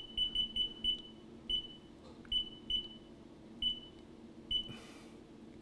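Haas CNC mill control panel beeping as its keys are pressed: about ten short, high beeps at an uneven pace, several in quick succession at first and then spaced out. A steady low machine hum runs underneath.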